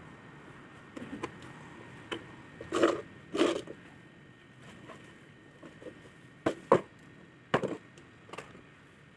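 Steel trowel scraping and tapping on a cement casting and its mould: two short scrapes about three seconds in, a few small clicks, then several sharp knocks near the end.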